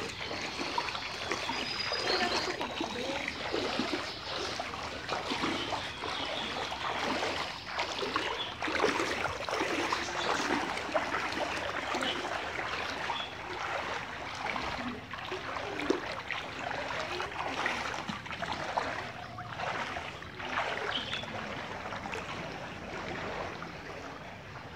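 Feet wading through shin-deep floodwater: irregular sloshing and splashing of the water with each step.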